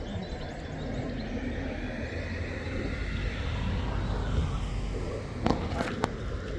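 Steady outdoor rumble and hiss, with a few sharp clicks near the end.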